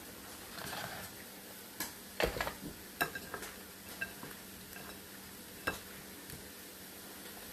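Hands tossing sliced summer squash in flour in a glass dish: soft rustling and a cluster of light clinks against the glass about two to three and a half seconds in, with one more clink near the end.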